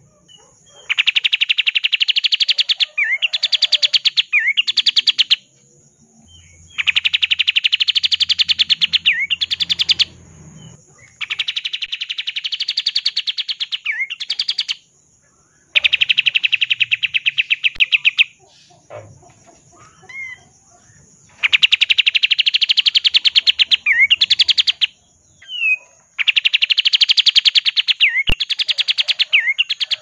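Olive-winged bulbul (kapas tembak) singing its fast, rolling 'ngebren' trill: about six long bouts of rapid, evenly pulsed trilling of a few seconds each, several broken by quick rising notes, with short pauses between.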